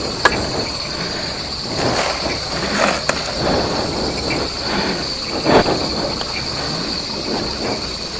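Insects, crickets, trilling in a steady high chorus, with a few rustling steps through grass; the loudest rustle comes about five and a half seconds in.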